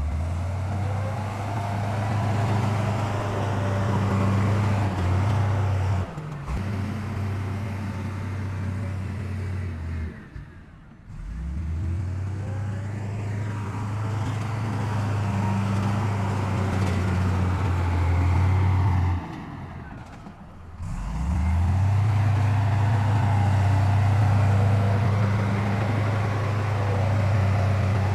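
Heavy diesel engine of earthmoving machinery running under steady load with a deep, even hum. It falls away briefly three times, about six, ten and nineteen seconds in, and each time comes back up with a rise in pitch.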